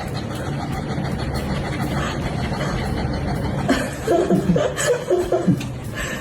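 A person chuckling in a short burst of laughs about four seconds in, over a steady low background noise.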